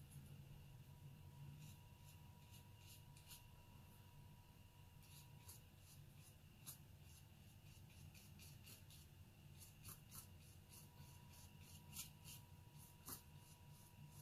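Faint scratching and light ticks of a watercolor brush stroking over heavy watercolor paper, a few sharper ticks near the end, over a faint steady hum.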